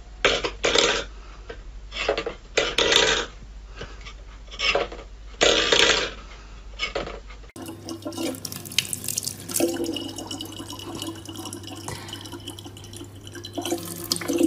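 About half a dozen short, loud bursts of noise, then water running from a tap with splashing and scattered knocks.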